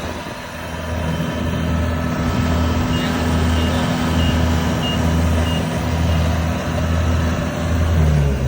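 Rice combine harvester's engine running under load with a low, pulsing hum, while its reverse warning beeper sounds a row of short high beeps about three seconds in.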